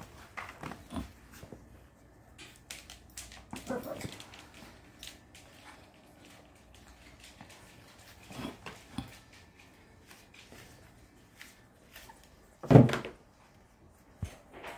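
Three-week-old puppies whimpering and yelping in short, scattered calls, with one much louder short sound near the end.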